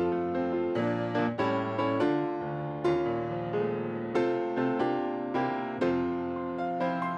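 Solo piano playing an upbeat piece, quick struck chords and runs of notes that ring and decay.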